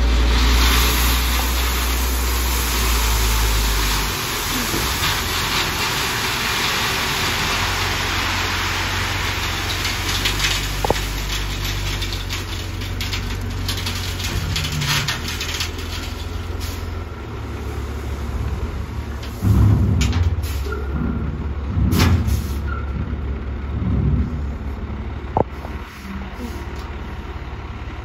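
Freightliner dump truck's diesel engine running steadily under load while the raised bed tips out a load of gravel, which slides off with a loud rushing hiss that fades after about ten seconds. Several heavy thumps and bangs come later as the truck creeps forward with the bed up.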